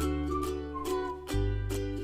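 Background music: a light, cheerful tune of plucked strings keeping a steady beat, with a whistled melody sliding between notes over a bass line.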